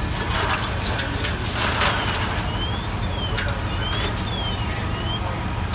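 Fire apparatus engines running with a steady low rumble. Scattered sharp knocks and clicks come in the first two seconds, and again about three and a half seconds in. In the middle, a faint high whistle glides up and down about twice a second.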